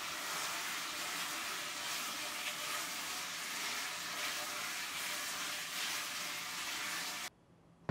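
Chicken and vegetables sizzling in a hot wok as they are stir-fried, a steady crackling hiss that cuts off suddenly near the end.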